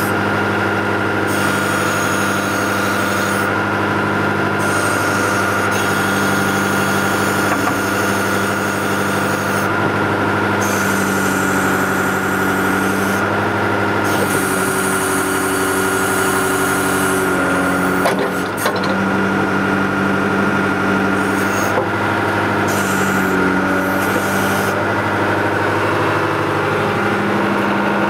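John Deere 310D backhoe loader's diesel engine running steadily while the backhoe is worked, with a constant high whine over the engine and a hiss that switches on and off several times as the controls are moved. A single sharp clunk comes about eighteen seconds in.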